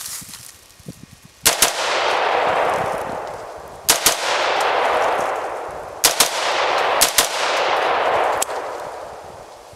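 Bushmaster XM-15 AR-15 rifle in .223/5.56 firing nine shots, mostly in quick pairs, each group trailed by a long echo that fades over a couple of seconds.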